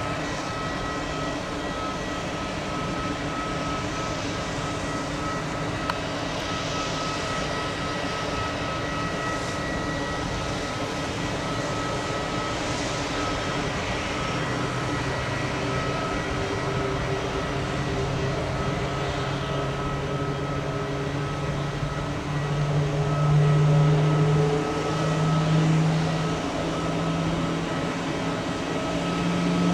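Airbus A320neo jet airliner on the ground at the start of its start-up: a steady whine with a few constant tones, joined about halfway by a low hum that rises slightly in pitch and swells louder a few times near the end.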